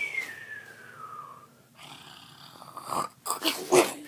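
A boy fake-snoring in cartoon style: a whistle falling in pitch, then loud, noisy snore breaths about three seconds in.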